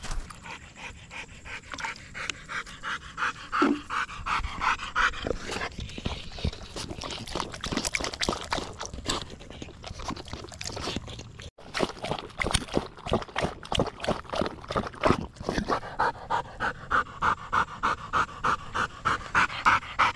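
German shorthaired pointer panting fast and rhythmically, about three to four breaths a second, as it works in warm weather. In the middle stretch the panting gives way to footsteps and rustling through cover, and the panting returns strongly near the end.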